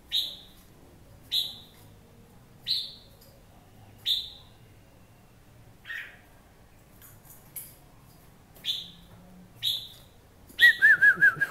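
Caged red-whiskered bulbul calling: a short, sharp call about every second and a half, then a quick burst of warbling notes near the end.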